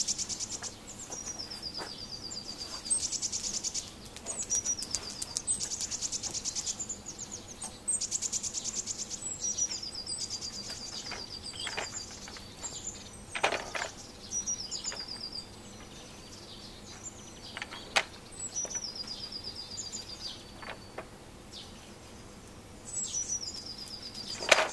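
Songbirds singing: short high phrases that step down into fast trills, repeated every couple of seconds. A few short knocks sound in between, the loudest near the end.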